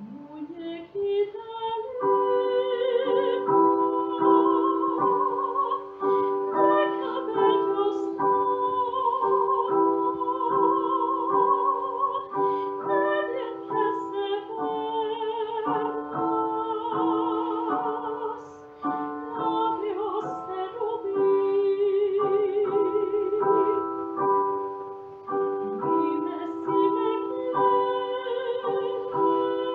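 Classically trained soprano singing a song with wide vibrato over a piano accompaniment of steadily repeated chords. The voice slides upward into the phrase at the start.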